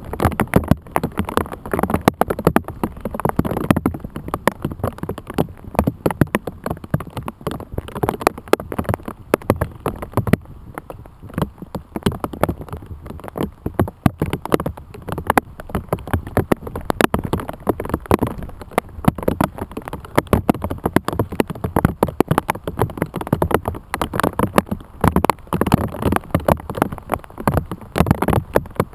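Rain pelting a plastic bag wrapped over the camera: a dense, irregular patter of drops smacking the plastic.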